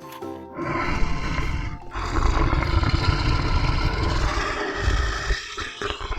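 Lion roaring: long, rough roars starting about half a second in, with a brief break near two seconds and another dip near the end. A few notes of music come just before.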